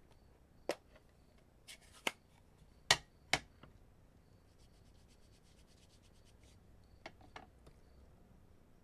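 Paper-crafting sounds on a tabletop: a handful of sharp taps and clicks with light rubbing and faint rapid ticking in between, from card-making pieces, paper and a stamp being handled.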